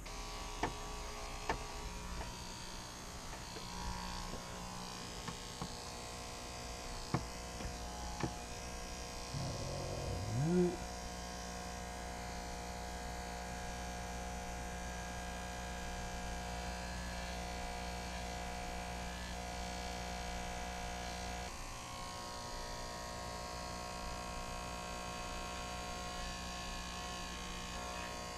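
Electric hair clippers buzzing steadily while trimming hair at the back of the neck, with the pitch of the buzz shifting about two-thirds of the way through. A few light clicks come in the first eight seconds, and a short rising sound about ten seconds in is the loudest moment.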